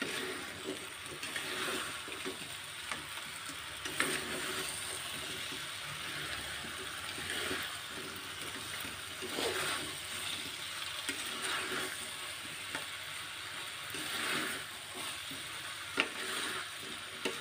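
Metal spatula stirring and scraping battered chicken in a sticky sauce around a metal wok over a low sizzle, in uneven strokes every second or two. Two sharp knocks, about four seconds in and near the end.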